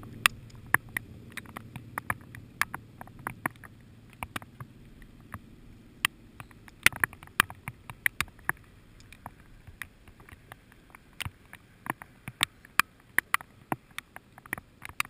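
Light rain: scattered raindrops hitting close to the microphone in irregular sharp taps, a few a second and uneven in loudness, over a faint low hiss.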